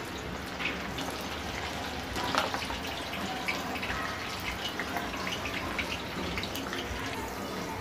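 Sliced onions deep-frying in a pan of hot oil, just added as a first small batch: a steady bubbling sizzle with scattered crackles and pops.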